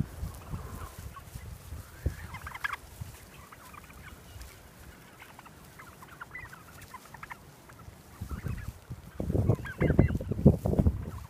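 A flock of heritage turkeys calling with short, scattered clucks and yelps. From about eight seconds in, low gusts of wind rumble on the microphone and are the loudest sound.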